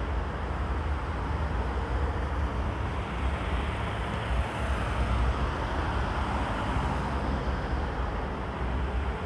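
Steady road traffic noise from cars and lorries, swelling a little around the middle, with wind rumbling on the microphone.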